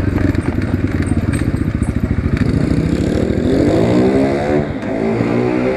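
Asian Beast 250 dirt bike's engine running with a fast, even exhaust beat as the bike slows to a stop, then revving up briefly a little past halfway and settling back toward idle.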